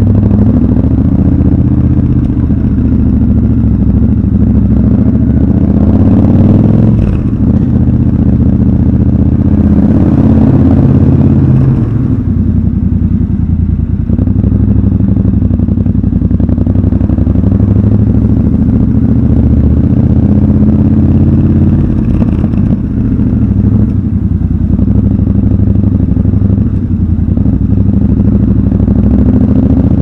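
Triumph Scrambler 1200 XC's 1200 cc parallel-twin engine running at low speed. The throttle is opened and eased off a few times, the engine note rising and falling, with the sound echoing in an underground car park.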